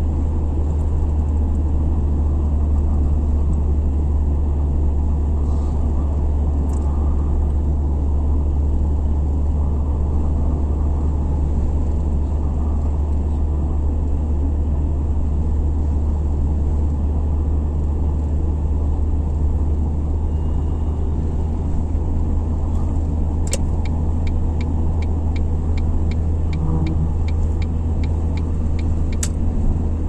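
Steady road and engine noise inside a car cruising on a motorway: a deep low rumble with tyre noise over it. For several seconds near the end there is a run of evenly spaced ticks, about three a second.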